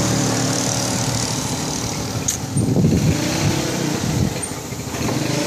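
Engine of a custom CB-style Honda Tiger motorcycle, an air-cooled single-cylinder four-stroke, running steadily at idle. The sound swells and wavers briefly about halfway through.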